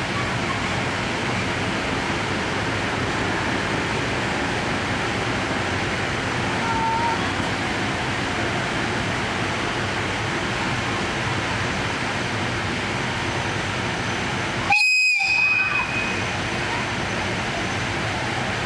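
Train whistle from the EF510 electric locomotive: one short, high-pitched toot about fifteen seconds in, its note trailing off over about a second. Under it, the steady noise of the train easing slowly along the platform.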